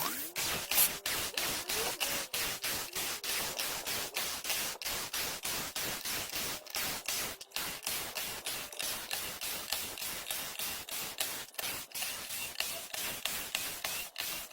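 Cordless screwdriver backing screws out of a wooden pallet, its motor noise broken into rapid choppy fragments about four times a second, with a short rising whine near the start.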